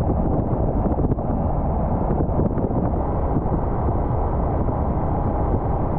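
Wind buffeting the microphone on a moving motorcycle: a loud, steady, deep rumble with the engine and road noise beneath it.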